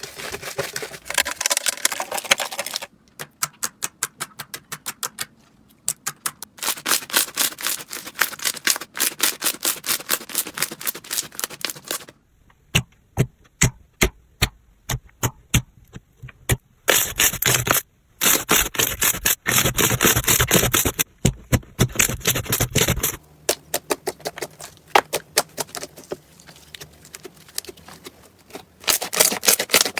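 Slime being squeezed, poked and pressed by hand, making rapid crackling, clicking pops. The texture changes every few seconds, from sparse clicks to dense crackle.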